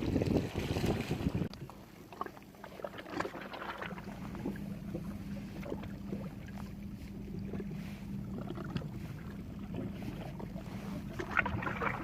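Wind buffeting the microphone for about the first second and a half, then a steady low motor hum with a constant drone and scattered light clicks and knocks.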